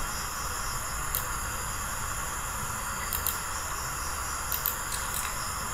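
Steady hiss of a recording's background noise, with a few faint clicks scattered through it.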